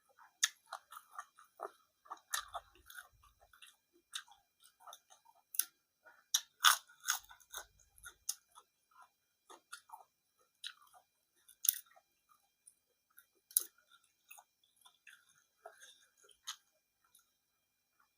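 A person chewing food close to the microphone, with sharp crunches and mouth clicks scattered throughout; the loudest crunches come about a third of the way in and again about two-thirds in.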